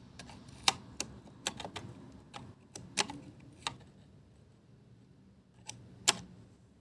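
Irregular sharp clicks and taps of the hard plastic parts of a disassembled robot vacuum being handled, with a pause of nearly two seconds before two last clicks near the end.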